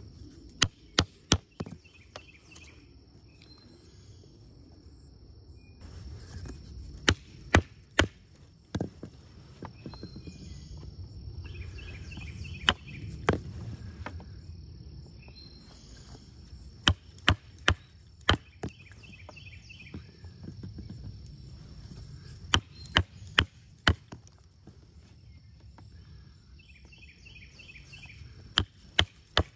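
Wooden mallet striking the spine of a homemade putty-knife blade, driving it through a green sapling to carve a stake point: sharp knocks in quick bursts of three to five, repeated every few seconds.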